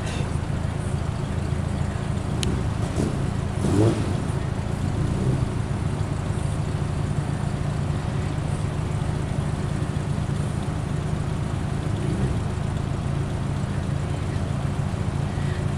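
Car engine idling with a steady low rumble, with a quick rev about four seconds in and lighter blips of the throttle around five and twelve seconds.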